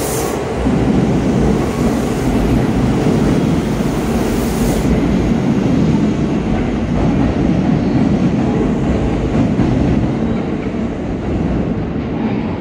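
Kintetsu Vista EX 30000 series double-deck limited express pulling out of an underground station: a steady loud rumble of wheels on rail as the cars run past, easing slightly near the end as the train goes into the tunnel.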